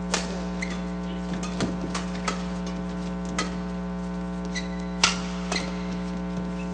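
Sharp, irregular cracks of badminton rackets hitting the shuttlecock during a rally, with a few short shoe squeaks on the court. A steady electrical hum runs underneath.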